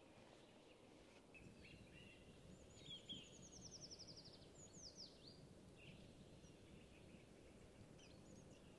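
Faint wild birdsong in a forest: scattered high chirps, a quick high trill about three seconds in, and a couple of falling whistled notes, over a low steady hiss.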